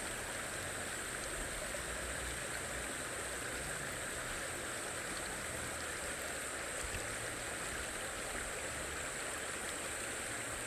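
Shallow, clear stream running over gravel and stones, a steady unbroken rush of flowing water, with a steady high-pitched hiss above it.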